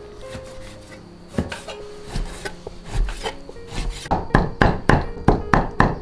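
Cleaver chopping rose petals on a wooden log chopping block: scattered knocks at first, then steady chopping at about four strokes a second near the end. Soft background music plays underneath.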